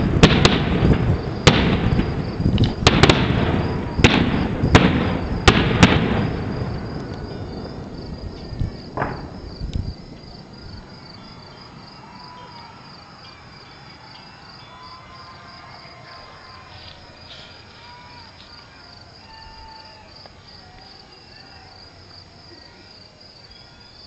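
Fireworks going off in quick succession, sharp bangs and crackling for about six seconds, then dying away by about ten seconds in. After that a steady high insect trill carries on under faint distant sounds.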